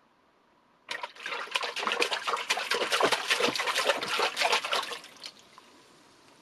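Water splashed by hands, as when washing the face: a quick, dense run of splashes that starts abruptly about a second in and stops suddenly some four seconds later.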